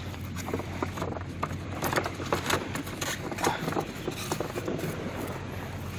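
A hand rummaging in a styrofoam cooler box and lifting out blue swimmer crabs: irregular scrapes and clicks of crab shells and claws against the foam.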